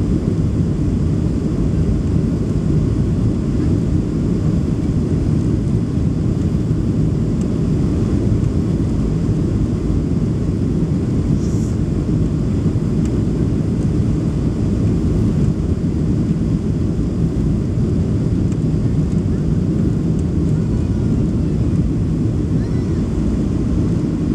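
Cabin noise inside a Boeing 737 Next Generation airliner descending on final approach: a steady, low rumble of engines and airflow.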